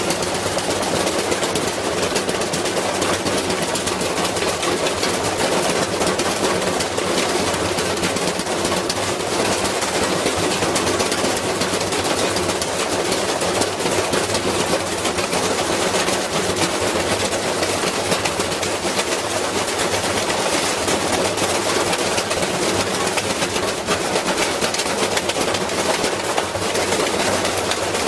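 A washing machine running with a heavy iron mass loose in its drum, the weight battering the drum and cabinet in a fast, unbroken clatter as the machine shakes itself apart.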